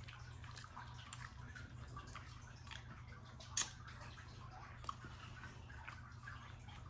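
Close-up eating sounds: a plastic spoon scraping chili out of a paper cup and wet mouth sounds of chewing, with scattered small clicks and one sharper click about three and a half seconds in.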